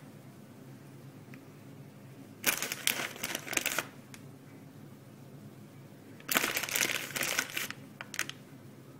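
Small red candies being handled and set onto a pancake on a plate: two bursts of crinkling and clicking, each just over a second long, the first about two and a half seconds in and the second about six seconds in, with a couple of clicks after it. A low steady hum runs underneath.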